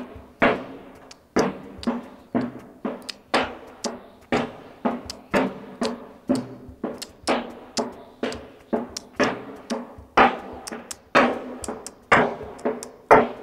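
Steady flamenco rhythm of sharp percussive strikes, a strong one about once a second with lighter ones between, over faint music.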